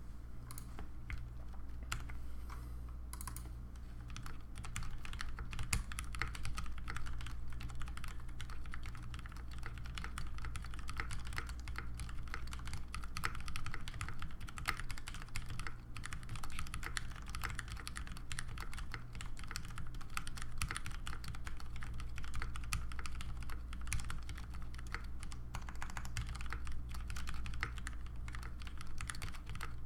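Mechanical keyboard with linear Cherry MX Speed switches on 72 g springs, lubed with Krytox 205/105, under GMK keycaps, being typed on in a fast, continuous stream of keystrokes.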